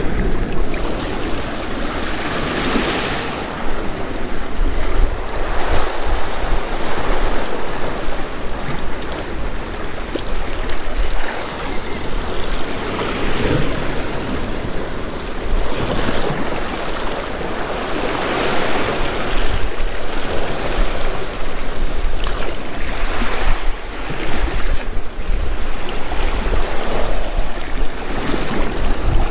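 Sea waves surging and breaking over a rocky shore, the wash swelling and easing every few seconds, with gale-force wind buffeting the microphone.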